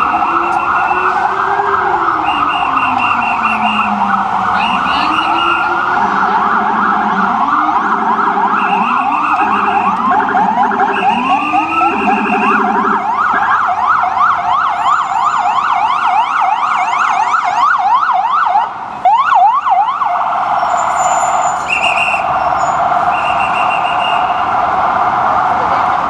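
New York ambulance's electronic siren wailing in slow rising-and-falling sweeps, with the low rumbler siren sweeping along beneath it for the first half. Near the middle it switches to a fast yelp, then to an even faster warble in the last quarter, with short higher-pitched horn blasts repeated several times.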